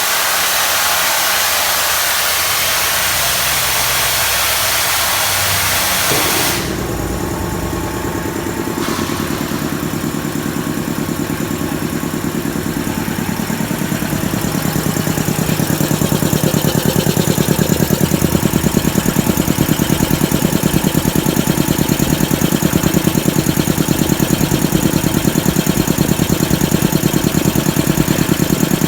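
Air compressor driven by an 11 kW electric motor. It opens with a loud hiss, which cuts off about six seconds in. The machine is then heard running with a rapid, even pulse that grows louder over the next ten seconds and then holds steady.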